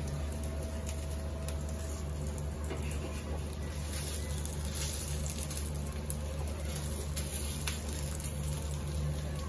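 Potato tikkis frying in desi ghee on an iron tawa, a steady sizzle and crackle with scattered light taps and scrapes of a metal spatula as they are turned, over a continuous low hum.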